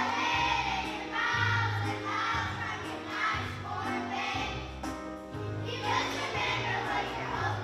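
A song with a group of voices singing over instrumental accompaniment and a steady bass line.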